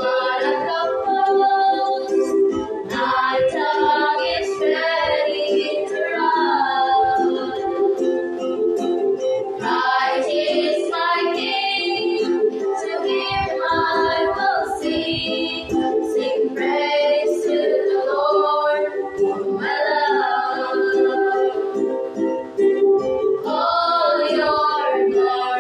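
Three girls singing a hymn together in unison to a strummed ukulele accompaniment.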